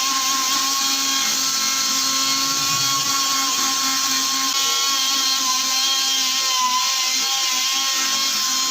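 High-speed power tool running steadily, a held whine with hiss.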